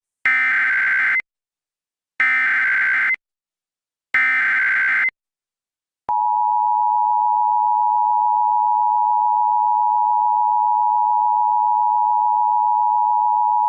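Emergency Alert System tones: three one-second bursts of screechy digital data tones (the SAME header), then, about six seconds in, the steady two-tone EAS attention signal starts and holds.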